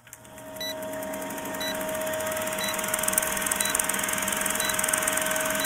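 Vintage film countdown-leader sound effect: a film projector's steady whirring clatter with a low hum, fading in over the first couple of seconds, with a short high blip once a second as the countdown ticks down.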